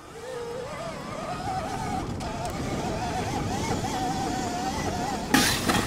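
Electric motor and gearbox of a BHR E-Race dirt bike whining under way. The pitch climbs as the bike speeds up over the first second or so, then holds with small wobbles over a low rumble. A sudden loud burst of noise comes near the end.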